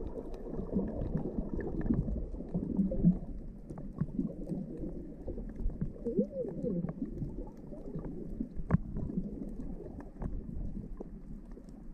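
Underwater sound picked up by a submerged camera: a muffled low wash of moving water with wavering gurgles of bubbles and scattered small clicks throughout.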